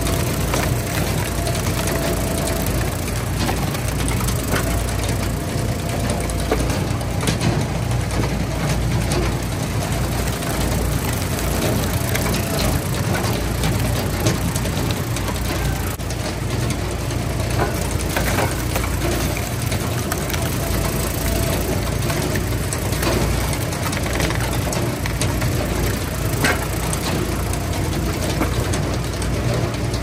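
Engines of Eastonmade hydraulic wood splitters running steadily, with occasional sharp cracks of wood splitting.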